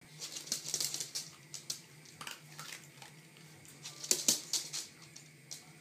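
Irregular light clicking and tapping on a laminate floor as a West Highland White Terrier scurries after its food, with two louder clacks about four seconds in.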